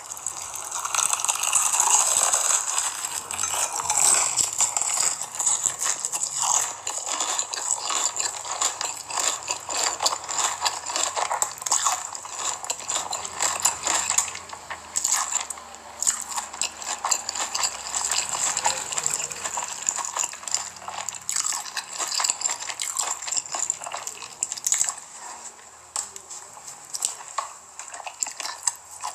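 Close-miked crunching and chewing of crispy fried chicken coated in sticky chili sauce, with dense crackly bites and wet mouth sounds throughout.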